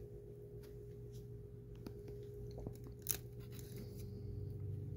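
Indoor room tone: a steady low hum with scattered faint clicks and handling noises, and one sharper click about three seconds in.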